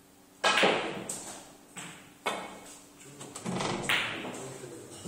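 Snooker balls being played: a sharp knock about half a second in, the loudest, followed by several more knocks of balls against balls and cushions, each dying away quickly.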